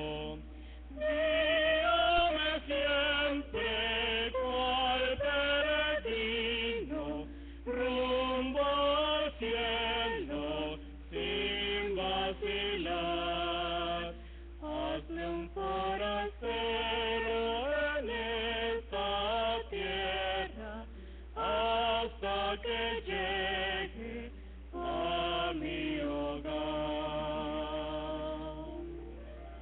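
A woman and a man singing a Spanish-language hymn duet, sustained phrases with vibrato and short breaks between lines, over a steady low electrical hum.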